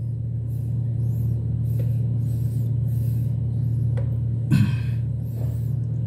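A steady low hum, with faint intermittent scraping of a white plastic shank nut being turned by hand against the underside of a toilet tank. A brief click comes about four seconds in and a short sound just after.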